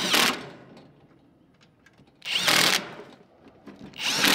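Cordless drill with a socket bit running M6 bolts into a steel coop frame, in three short bursts: one at the start, one about two seconds in and one near the end.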